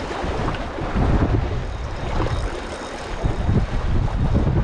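Gusty sea wind buffeting the microphone, a rough low rumble that swells and eases, with a lull a little before three seconds in.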